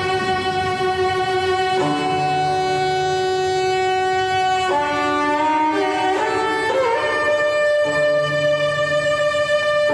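Slow solo cello music: long held bowed notes that change pitch every few seconds, with a slide up in pitch about seven seconds in.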